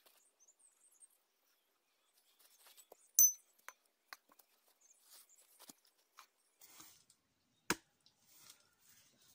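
Firewood being worked by hand: scattered small knocks and cracks, a sharp bright tap about three seconds in and a heavier knock near the end.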